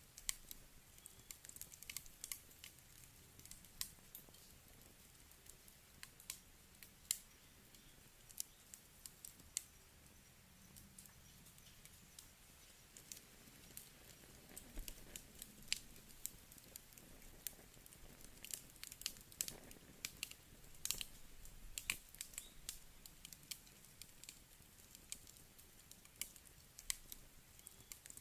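Wood campfire crackling: irregular sharp snaps and pops of burning wood over a faint hiss, coming a little thicker in the second half.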